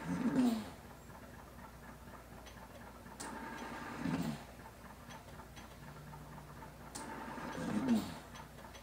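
Breathing cycle of a mechanical ventilator repeating about every four seconds: a small click, a faint hiss, then a short falling breathy tone as each breath is let out, three times.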